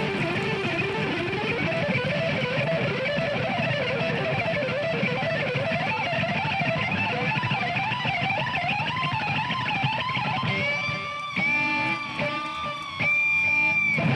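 Electric guitar solo: a melody line wavering with wide vibrato and bends, then from about ten seconds in a few long sustained notes with brief breaks between them.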